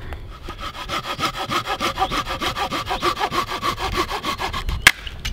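Folding pruning saw cutting through a log by hand, in quick, even back-and-forth strokes at about five a second. The sawing stops almost five seconds in with a single sharp crack.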